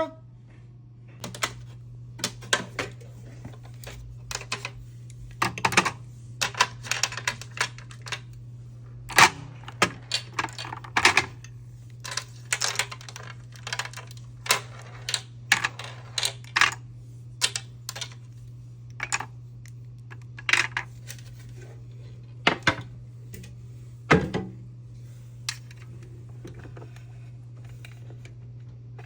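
Small cosmetic items such as lip products clicking and clattering as they are set into a mini tool box drawer, in irregular taps that thin out near the end. A steady low hum runs underneath.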